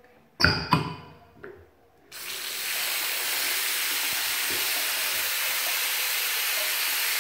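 Two sharp knocks about half a second apart, then about two seconds in a tap is turned on and water runs steadily into a ceramic washbasin.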